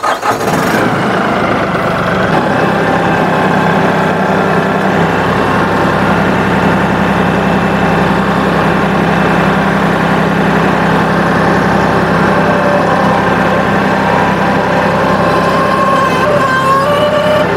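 New Holland compact tractor's diesel engine running steadily as the tractor drives. Near the end a wavering whine rises over the engine, which the owner takes for the hydraulic system sucking in air.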